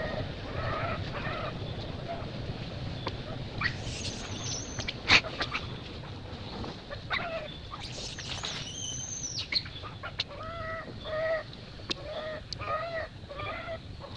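Baby macaque crying: a run of short, repeated pitched cries, with two higher, drawn-out squeals about four and eight seconds in. A sharp click about five seconds in is the loudest moment.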